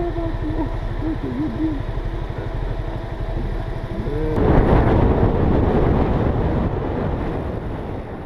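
Vehicle engine running with a steady low pulsing, heard from inside the cab, with a voice humming or talking briefly at the start. About four seconds in, a sudden loud burst of rumbling noise starts and slowly dies away.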